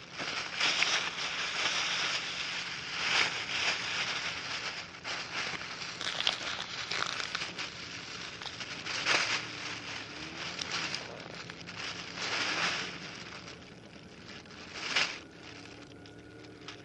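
Rustling, crinkling noise that swells and fades unevenly, with a few sharper crackles.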